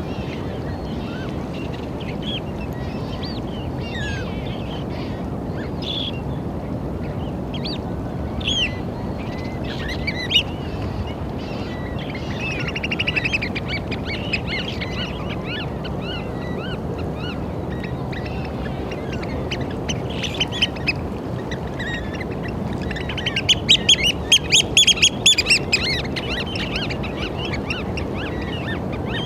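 Eurasian oystercatchers calling: scattered short high calls, a short run about halfway through, and a rapid run of loud calls near the end, over a steady noisy background.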